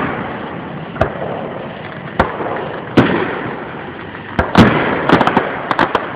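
Small consumer fireworks going off: single bangs about a second in, a little after two seconds and at three seconds, each followed by a fading crackle, then a rapid string of sharp pops from about four and a half seconds on.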